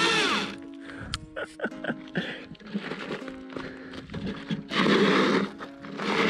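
Background music with sustained notes, with loud stretches of rushing noise at the start and again about five seconds in.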